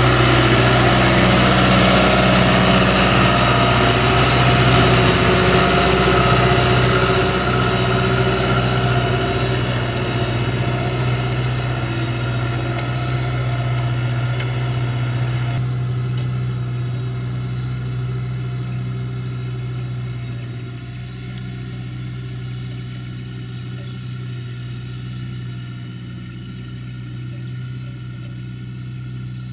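John Deere 5090M tractor's four-cylinder diesel engine working steadily under load as it pulls a plough through wet, heavy mud. A constant low drone that grows gradually fainter as the tractor moves away.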